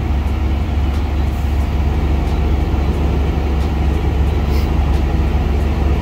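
Semi-truck diesel engine idling steadily, heard from inside the cab, as the air system builds pressure after the faulty air pressure sensor was replaced.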